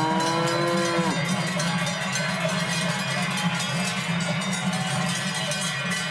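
A cow's long moo that rises and then drops off about a second in, followed by many cowbells clanging.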